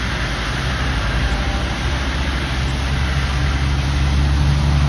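Tractor-trailers on a wet road: tyre hiss from the spray as a semi truck drives past, and a deep diesel engine hum that grows steadily louder toward the end.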